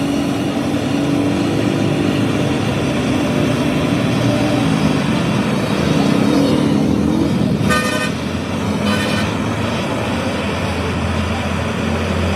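Steady motor-vehicle engine noise, climbing a little in pitch, with two short horn toots about a second apart near the middle.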